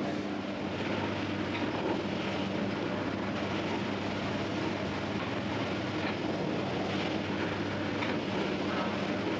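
Bakery dough-rounding machine, with a rotating flour-covered pan and rollers, running steadily with a constant low hum and a few faint light ticks.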